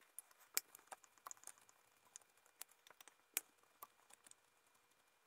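Faint, irregular light clicks and taps of a hex driver working small screws on an RC truck's chassis, about a dozen over four seconds, then stopping.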